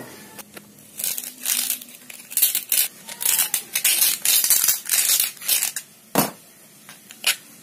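A knife blade scraping and carving at the centre hole of a fibreglass-reinforced abrasive cutting disc, in a run of irregular rasping strokes that widen the hole to fit a bolt. A single sharp knock follows about six seconds in.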